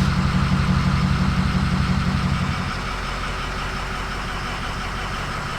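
Ford 6.0 Powerstroke V8 turbo-diesel idling with a steady pulsing beat. About halfway through it drops to a lower, quieter idle, as the engine settles down after the start.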